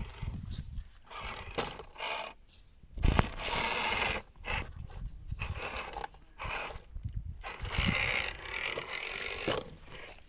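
1/10-scale MST CFX Toyota FJ RC crawler's electric drivetrain whirring in short stop-start bursts as it inches across wooden planks, with its tyres scraping and knocking on the wood. A sharp knock comes about three seconds in.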